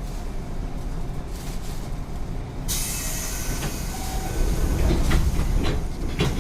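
JR West 205 series 0 electric train running, heard from inside the car: a steady low rumble of motors and wheels on the track, with a few clacks over rail joints. A sudden steady hiss comes in about two and a half seconds in.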